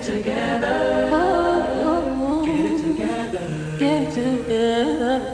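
Music: several voices singing together in harmony, with no clear words.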